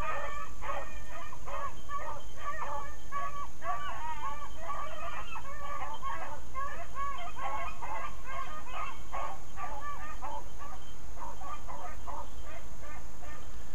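A pack of beagles giving voice on a rabbit's scent trail, with many short, overlapping yips and barks in a continuous chorus.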